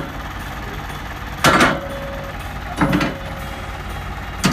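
Metal loading ramps clanking three times as they are pulled off a flatbed trailer and set down, the first clank ringing briefly. A truck engine idles steadily underneath.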